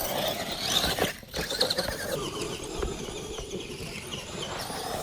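Radio-controlled monster truck driving, its motor whining with the tyres churning over the ground; a few brief knocks come in the first second and a half.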